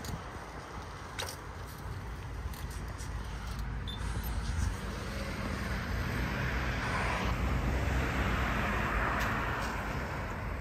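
Road traffic: a car approaching and passing, its tyre and engine noise swelling over the middle and easing near the end.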